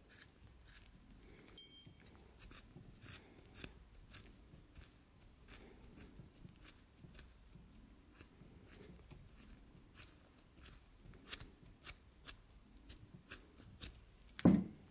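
Scissors snipping repeatedly through the nylon webbing keeper of a halter buckle: a run of small, sharp cuts and clicks a few times a second, with one brighter, ringing click about a second and a half in. A brief louder low sound comes near the end.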